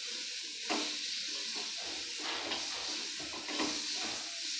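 Coarsely ground green peas and spice masala frying in a little oil in a metal pan, sizzling steadily while a spoon stirs them, with a few scrapes and knocks of the spoon against the pan.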